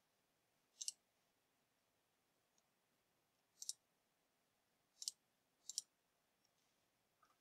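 Computer mouse clicking four times against near silence: once about a second in, once near the middle, and twice close together later on.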